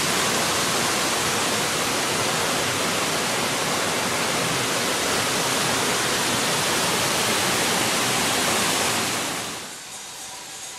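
Waterfall rushing: a loud, steady hiss of falling water. It cuts off abruptly about nine and a half seconds in, leaving a much fainter hiss.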